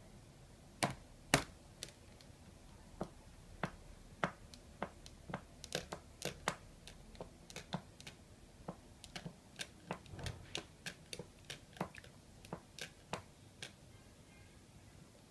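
Small plastic feeding spoon tapping and clicking against a plastic high-chair tray as a baby plays with it: irregular sharp taps, about two a second, the two loudest about a second in.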